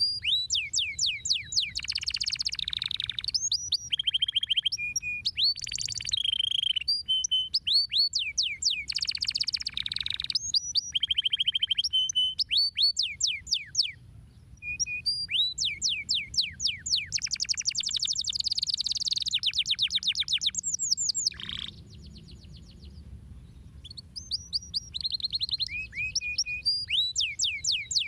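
Domestic canary singing a long, rolling song of rapid trills and whistled notes, broken by a brief pause about halfway through and a longer pause of a few seconds about three quarters of the way in.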